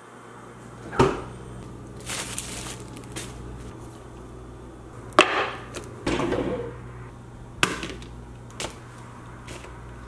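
Kitchen handling sounds: four sharp knocks and clunks as the refrigerator is opened and jars are set down on the countertop, with short rustles between, over a steady low hum.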